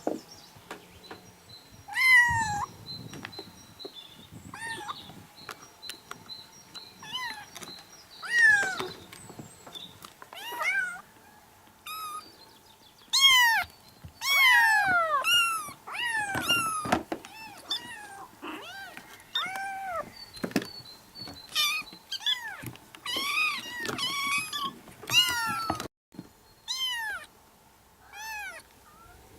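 Several kittens meowing, high-pitched calls that rise and then fall, coming one after another every second or two and often overlapping, busiest in the middle.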